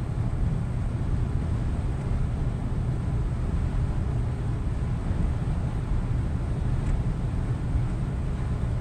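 Scania truck cruising at steady motorway speed: a constant low rumble of engine and tyre noise.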